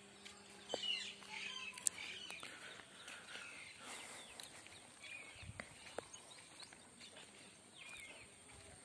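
Faint birdsong: several birds chirping and calling in short, quickly rising and falling notes, with a few light clicks.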